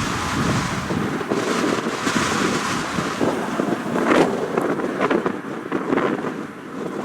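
Wind buffeting the microphone: a gusty rushing noise that rises and falls, with a few short pops about four to six seconds in.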